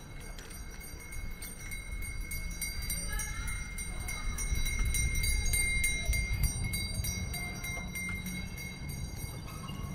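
City street ambience heard from a moving bicycle. A low rumble swells towards the middle, with a thin steady high whine, faint voices and light rattling clicks.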